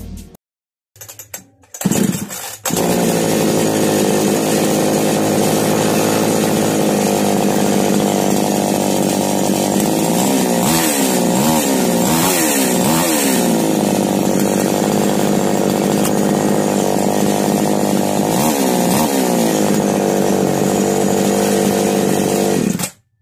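Two-stroke petrol chainsaw, freshly repaired for a starting problem, starting about two seconds in and then running steadily. It is revved up and down a few times in the middle and again near the end, showing it now starts and runs well. The engine cuts off abruptly near the end.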